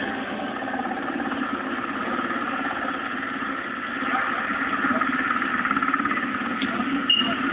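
A steady engine running, heard through a television's speaker with the high end cut off.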